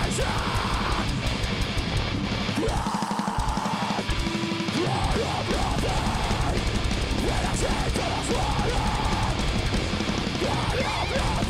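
A deathcore band playing live and loud: distorted guitars, bass and a drum kit. The low end drops out for about two and a half seconds around three seconds in, then the full band comes back in.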